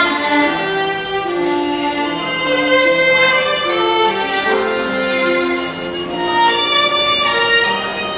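Violin playing a melody of held notes, each lasting about half a second to a second.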